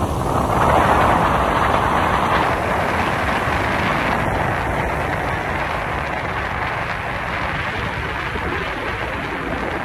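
Moving car's road and wind noise: a steady rumble of tyres and engine with air rushing past, swelling louder about a second in before settling.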